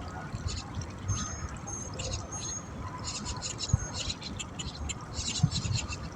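Small birds chirping and twittering in repeated quick bursts over a low rumble, with two sharp low thumps, one past the middle and one near the end.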